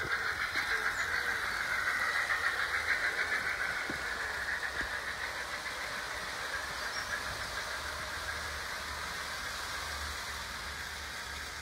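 OO gauge model train running along the track, a steady whirring clatter with a fast rhythmic pulse, loudest a couple of seconds in and then slowly fading.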